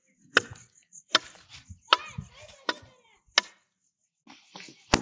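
A billhook blade chopping at a wooden stick to shape it into a stake: sharp wooden strikes about one every three-quarters of a second, five in a row, then a pause and one more at the end.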